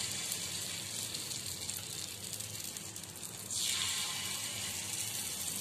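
Appe batter sizzling in the hot oiled cavities of an appe pan as spoonfuls are poured in. A steady hiss, with a louder burst of sizzling about three and a half seconds in as another spoonful hits the oil.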